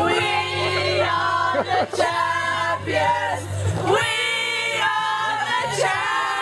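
Music playing with sung vocals: long held sung notes over a steady bass line, with a dip in the bass about two thirds of the way through.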